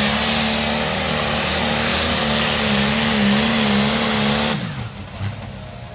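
John Deere pulling tractor's engine running flat out under load as it drags the weight sled, a loud steady drone. About four and a half seconds in the engine note drops away and winds down as the pull ends.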